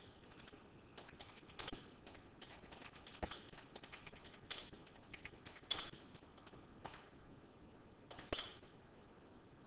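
Faint, irregular clicks of keys on a computer keyboard, a few keystrokes at a time with short pauses between.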